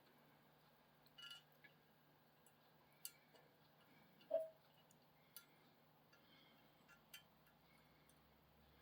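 Near silence with a few faint, scattered clicks and taps: small metal landing-gear pieces being handled and fitted onto a 1:200 scale die-cast model airliner.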